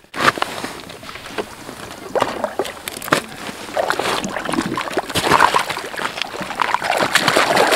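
Water splashing and sloshing in an ice-fishing hole as a lake trout thrashes and is hauled up through it. The splashes come irregularly and get busier in the last few seconds as the fish is lifted out.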